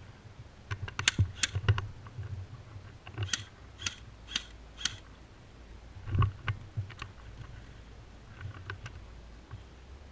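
Airsoft BB guns firing single shots as sharp snapping clicks: a few close together about a second in, then four in a row about half a second apart, then scattered shots after. There is a low rumble underneath.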